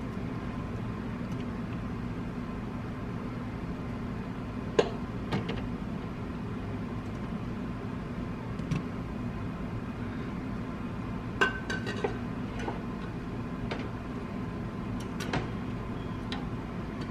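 Glass canning jars clinking now and then as they are set into a canner, one knock ringing briefly, over a steady low hum.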